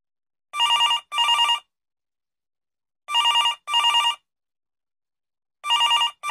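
Telephone ringing in the double-ring pattern, 'ring-ring' three times with about two and a half seconds between pairs: an outgoing call ringing before it is answered.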